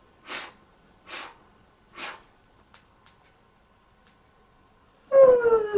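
Rubber balloon being blown up by mouth: three puffs of breath into it about a second apart, then a pause. Near the end the balloon is let go and starts a loud whine that falls steadily in pitch as the air rushes out of its neck.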